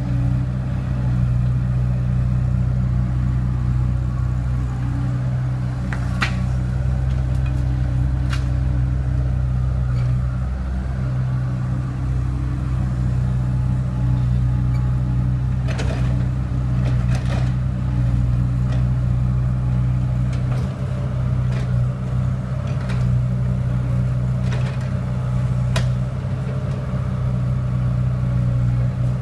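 Excavator's diesel engine running steadily at a constant pitch, with a few short sharp knocks scattered through.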